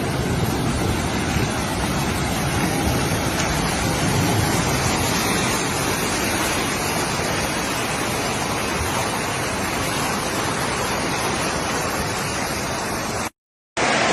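Steady rushing noise of storm water, even and unbroken, cutting off abruptly near the end.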